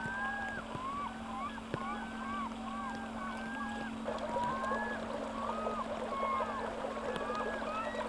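A flock of birds calling: many short, overlapping calls that rise and fall in pitch, over a steady low hum.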